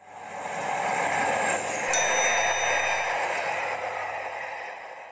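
A full-size train passing: a rush of noise that swells and then fades away, with a high squeal sliding down about two seconds in and thin whistling tones for about a second after.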